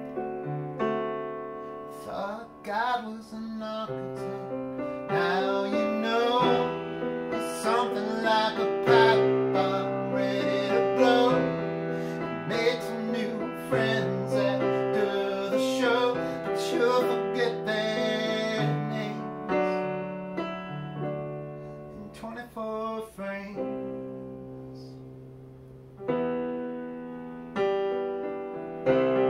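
Digital piano played with both hands, sustained chords under a melody line. It goes softer about three quarters of the way through, then fuller again near the end.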